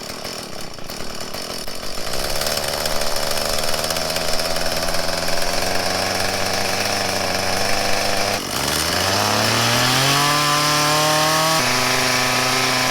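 Two-stroke engine of a Craftsman mini-tiller running steadily, then revving up about eight seconds in and holding at a higher speed. The engine is running again after a won't-start fault was cured by cleaning the carburetor.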